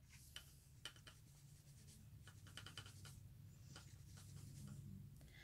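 Near silence, with faint scattered clicks and soft scratchy rustling from makeup products and brushes being handled, over a low steady hum.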